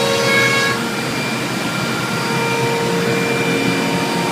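CNC router running with its dust extraction: a steady rushing hiss under a high whine of several pitches. About a second in the high whine cuts off, leaving a lower steady hum.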